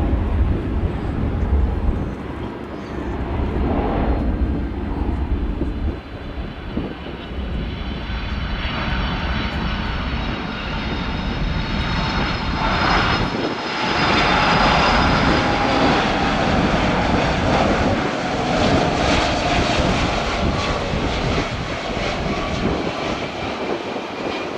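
Jet airliner engines passing by: a dense engine noise with a high whine in it, which swells to its loudest about halfway through and then slowly eases off.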